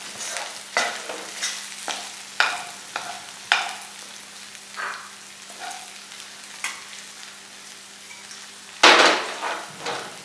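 Sweet corn kernels sizzling in oil in a stainless steel frying pan while a steel spoon stirs and scrapes them against the pan, with a scrape about every half second for the first few seconds, then fewer, and one louder scrape near the end.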